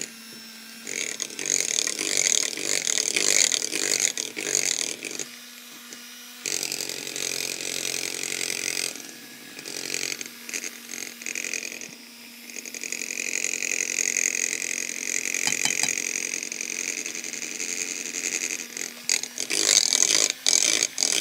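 Handheld electric mixer running, its beaters whirring through thin cake batter in a glass bowl. It drops in loudness briefly about five seconds in and again about twelve seconds in.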